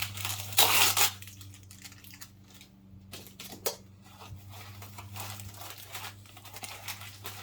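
Packaging being handled and unwrapped by hand: irregular rustling, crinkling and tearing, loudest about half a second to a second in, over a steady low electrical hum.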